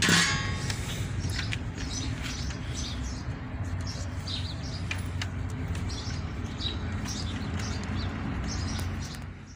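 Small birds chirping now and then over a steady low hum, with light clicks and taps of a screwdriver working on the plastic housing and circuit board of a truck instrument cluster.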